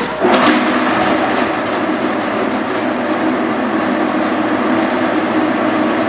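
Sweco M45L vibratory grinding mill switching on with a sudden start, then running steadily with a loud mechanical rattle and hum. The mill is not bolted down, so it rattles more than normal.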